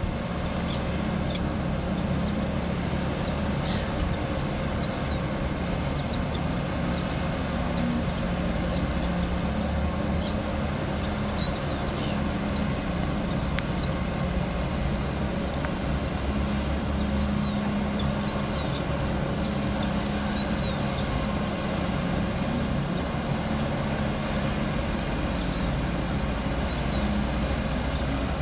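Tugboat's diesel engine running steadily with a low drone as the tug pushes against a ship's hull, with short high chirps now and then.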